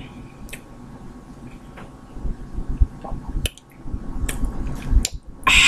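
Close-up eating sounds: food being handled and peeled by hand and chewed, with scattered soft clicks and low thumps and a louder crackling rustle near the end.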